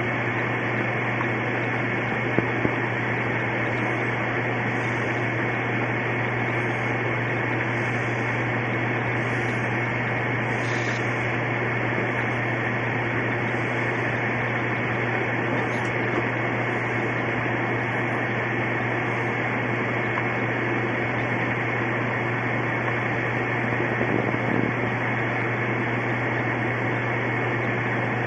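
Steady hiss with a low hum and a faint high tone underneath, unchanging throughout, broken only by two short clicks about two and a half seconds in.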